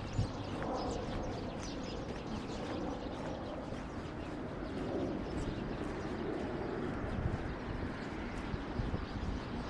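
Outdoor ambience with birds calling, including low, dove-like cooing.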